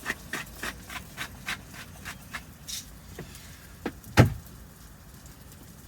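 A scatter of light clicks and taps, with one louder thump about four seconds in.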